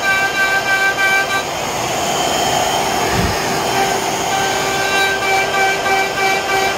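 CNC router spindle running under a dust-collection hood as it cuts fluting grooves into a wooden board: a steady, high, multi-toned whine over the rush of the vacuum. For a couple of seconds in the middle the whine gives way to a louder rushing noise, with a dull low thump about three seconds in.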